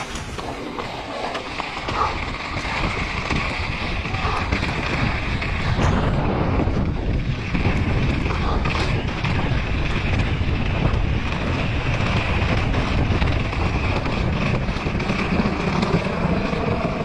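Wind rushing over the microphone together with the rattle and crunch of a mountain bike's tyres on loose gravel as it descends at speed; it gets louder after about six seconds.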